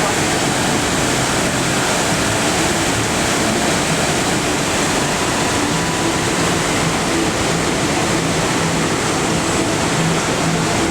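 Imatrankoski rapids' water rushing: a steady, even roar that does not let up.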